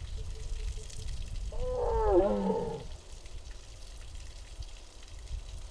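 A tiger gives one short call, about a second long, with a wavering pitch, about two seconds in.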